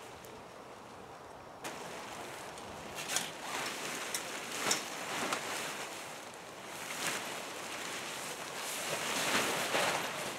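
Rustling of a large tipi's fabric as it is spread out and raised, with a few sharper crackles and a louder stretch of handling near the end.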